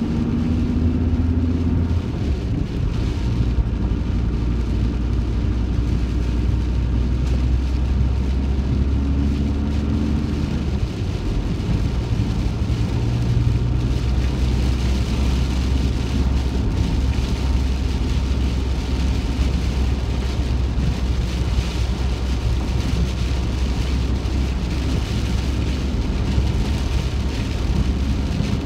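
Heavy rain falling on the roof of a moving van, heard from inside, over a steady low engine and road rumble. The rain hiss grows stronger about halfway through.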